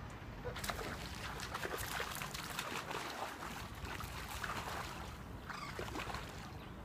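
Water splashing at the canal surface: repeated short splashes that start about half a second in and die away near the end.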